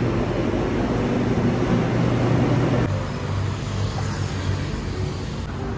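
Elevated metro train (Bangkok BTS Skytrain) standing at the platform: a steady low hum of the train's equipment under general station noise. About three seconds in it changes abruptly to the steady noise of city road traffic.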